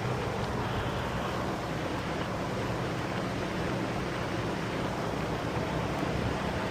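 A vehicle engine running steadily under a constant rushing noise, with a low steady hum and no change in pitch.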